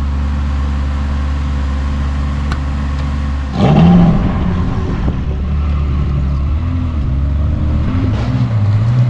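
Ferrari 360 Spider's V8 engine idling steadily, then revved sharply about three and a half seconds in, with further revs rising and falling, and climbing in pitch near the end as the car pulls away.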